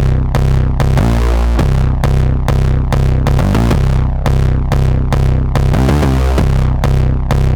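Electronic synthesizer patch from Tracktion's Biotek 3 playing a looping rhythmic pattern: a sharp percussive hit about every half second over a deep sustained bass tone.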